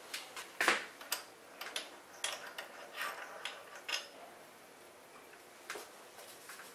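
Light metallic clicks and taps of small tooling handled by hand at a milling machine's spindle and vise, a pointed centre being fitted in place of the edge finder. About a dozen in the first four seconds, the sharpest just under a second in, then one more click near the end.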